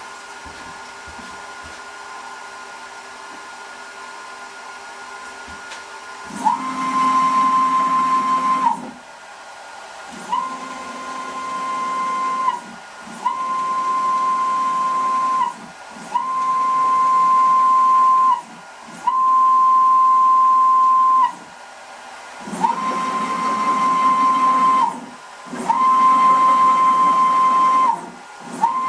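Small hobby CNC router's stepper motors whining as the gantry jogs, in about eight separate moves of two to three seconds each, with short pauses between, starting about six seconds in. Each move holds one steady pitch that ramps briefly up at the start and down at the end.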